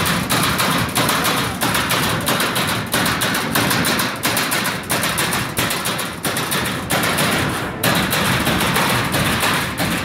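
Servo-electric CNC turret punch press punching holes in sheet steel: a fast, uneven run of sharp metallic strikes, several a second, as the sheet is stepped under the turret.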